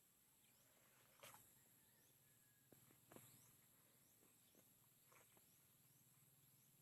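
Near silence: faint outdoor background with a steady high-pitched hiss and a couple of soft clicks.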